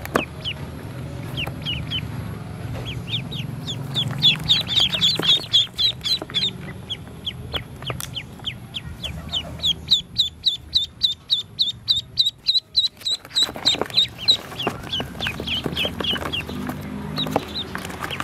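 A brood of ducklings peeping: many short, high, falling peeps overlapping, settling into a fast even run of about four to five peeps a second around the middle.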